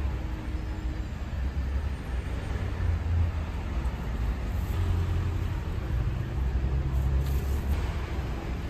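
Street traffic: cars running past, a steady low rumble with engine tones that rise and fade.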